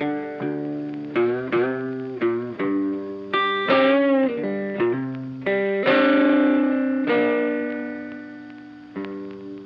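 Background music: an electric guitar with effects playing a slow melody of single picked notes that ring and fade, with a bent note about four seconds in and a long sustained note from about six seconds that slowly dies away.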